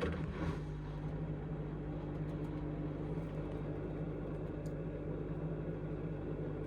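Indesit IMA862MYTIMEUK washing machine starting up with a click, then running with a steady, even hum that does not rise in pitch, during a spin attempt that the machine judges to be out of balance.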